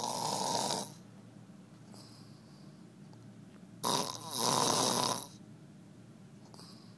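A man snoring in his sleep. One snore dies away just under a second in, and another starts about four seconds in and lasts about a second and a half. Faint breathing is heard between the snores.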